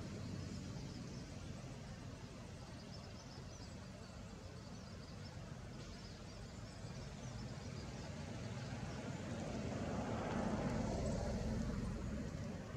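Outdoor background noise: a steady low rumble with faint high chirping, swelling for a couple of seconds near the end as of something passing.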